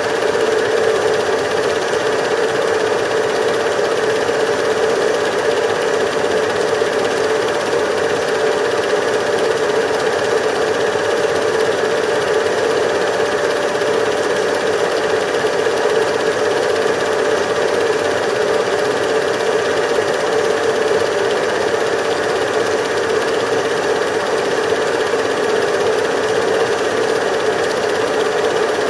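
Steady mechanical whirr of a cine film projector running, an even hum with a thin steady tone, unchanged throughout.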